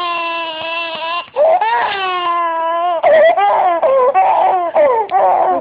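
Baby crying: two long, drawn-out wails, then shorter, broken sobbing cries from about three seconds in.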